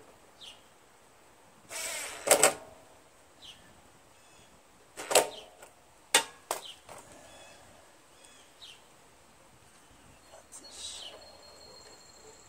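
Cordless impact driver fired in short bursts to snug the air-cleaner mounting nuts, loudest about two seconds in and again about five seconds in. Sharp clicks and knocks of parts being handled follow.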